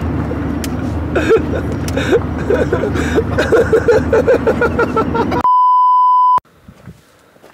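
Engine and road noise inside a moving van's cabin, with voices over it. About five seconds in it cuts abruptly to a steady electronic beep tone lasting about a second.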